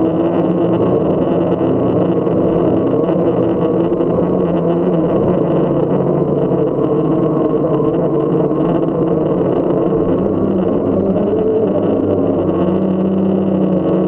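Multirotor camera drone's electric motors and propellers buzzing steadily in flight, the pitch wavering slightly as the motor speeds adjust.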